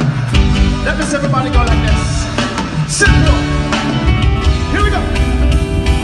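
Loud band music at a sound check: steady bass notes, drum hits and guitar, with sliding melodic lines above.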